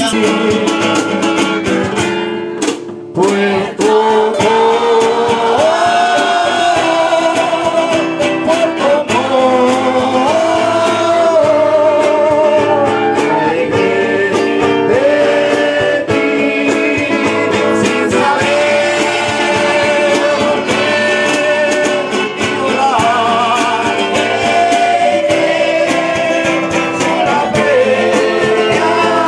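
Background music: a guitar-backed song with a held, wavering melody line, broken by a short gap about three seconds in.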